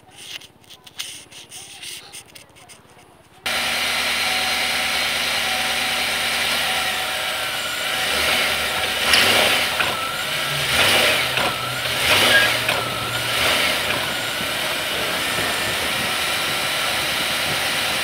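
Pickup truck engine coming on about three and a half seconds in and idling steadily. Then, as it is put into drive against the brake, several loud knocks and a wavering squeal come in the middle as the engine lifts on a damaged engine mount: the ugly noise of a failed motor mount.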